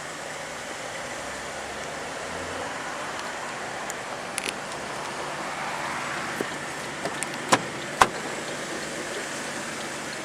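Steady background traffic noise with a few sharp clicks, then two louder knocks about seven and a half and eight seconds in.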